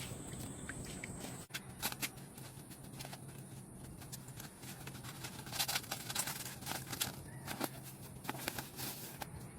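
Steady rain falling in a forest, with scattered sharp taps and clicks close by.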